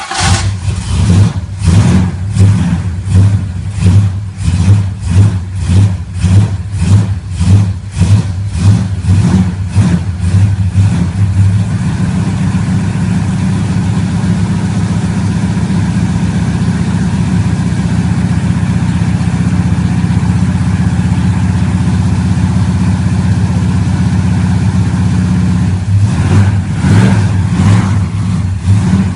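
Supercharged big-block V8 engine of a Dodge Charger running. For roughly the first ten seconds the sound swells and fades in a regular pulse, just under twice a second. It then settles into a steady idle, with a short rev near the end.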